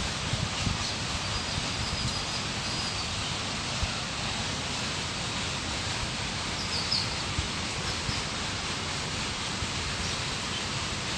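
Steady outdoor noise of wind and rustling leaves. Faint, short, high bird chirps come twice, about two seconds in and again near seven seconds.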